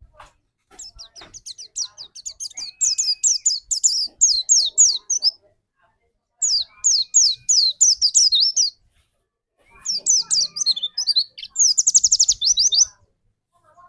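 White-eye (pleci) song: three bursts of rapid, high-pitched, downward-slurred notes with short pauses between them, the fast chattering 'tembakan' phrases that pleci keepers prize.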